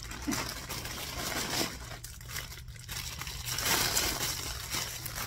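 Thin clear plastic bag crinkling as it is handled and artificial flower stems are pulled out of it, loudest about four seconds in.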